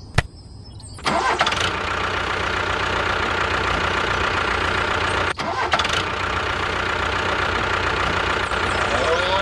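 A tractor engine starts about a second in and then runs steadily at idle.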